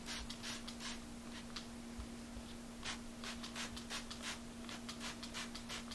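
Hand trigger spray bottle squirting a contact insecticide spray along a mattress seam in a quick series of short, faint spritzes, about three a second in the second half, over a steady low hum.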